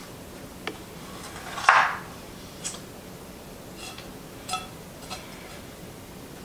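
Knife halving lemons on a cutting board: a handful of short knocks and clicks, the loudest a little under two seconds in, with a brief ringing clink of kitchenware near the middle.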